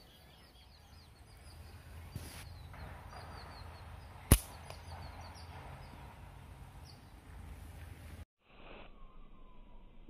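Small birds chirping in short repeated calls over a low outdoor background, with a single sharp crack about four seconds in, the loudest sound, from a slingshot shot.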